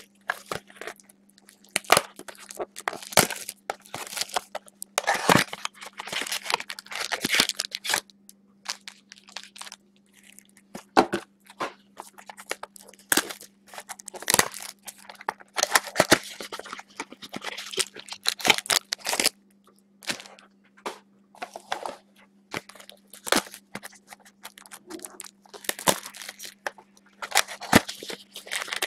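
Foil trading-card pack wrappers and plastic card holders crinkling and crackling as packs are torn open and cards handled, in irregular bursts. A faint steady hum runs underneath.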